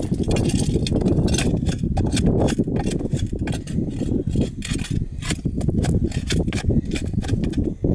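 Long-handled ice scoop scraping and clinking as it digs ice chips out of a hole in the ice, in irregular short crunching strokes, over a steady low rumble.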